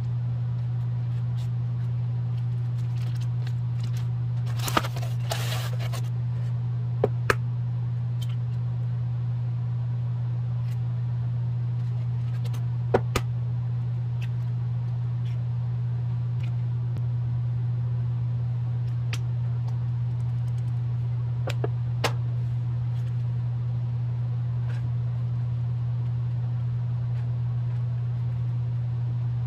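Eggs being cracked on the rim of a nonstick frying pan: a few sharp taps and cracks, in pairs about 7, 13 and 22 seconds in, over a steady low hum.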